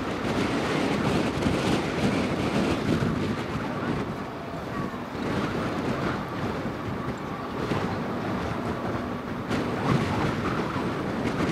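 Wind buffeting the microphone in gusts, over the distant rumble of the Antonov An-124's four turbofan engines as the jet climbs away.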